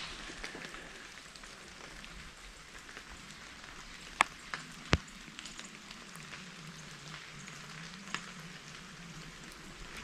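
Light rain in a conifer forest: a steady soft hiss of rain and droplets falling from the trees, with a few sharper single drips about four and five seconds in.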